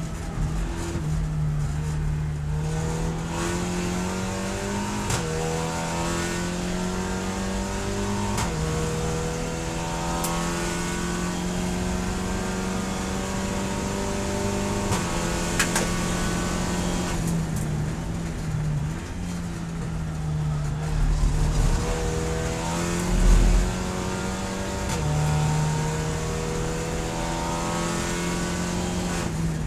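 Volkswagen Scirocco GT 24 race car engine heard from the cockpit under hard acceleration, its note climbing in pitch and dropping back at each upshift, twice in the first nine seconds. After a long pull in fifth the revs fall and blip as the car slows, there are heavy low thumps with the loudest about three-quarters of the way in, and the engine then pulls up through the gears again.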